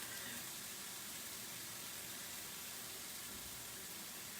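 Steady, even sizzling of fish frying in a pan.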